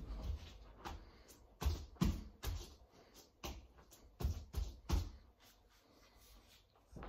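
Extra-wide 18-inch paint roller being worked over a wall: irregular thumps, knocks and rolling noises, busiest in the first five seconds and quieter near the end.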